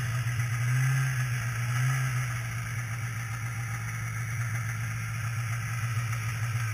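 Polaris snowmobile's two-stroke twin engine idling steadily.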